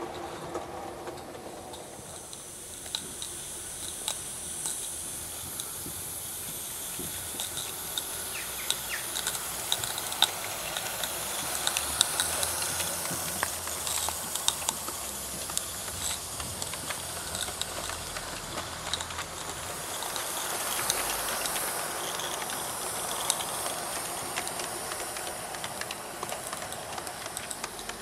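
Live-steam G scale model locomotive running, with a steady steam hiss and the wheels of the train clicking over the track.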